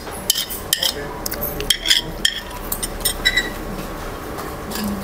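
Metal spoon and fork clinking and scraping against a plate while eating: a quick run of light clinks that thins out after about three and a half seconds.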